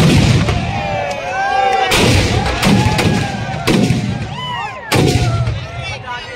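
Firecrackers packed inside burning Dussehra effigies going off: a string of loud bangs, the biggest at the start and about two, nearly four and five seconds in, with voices shouting between them.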